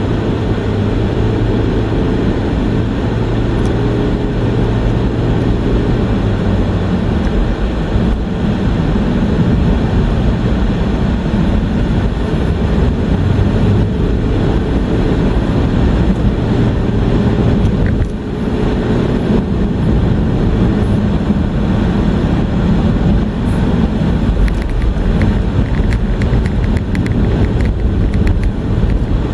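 Car driving at road speed, heard from inside the cabin: a steady rumble of engine and tyre noise, with a low engine hum that is strongest in the first few seconds.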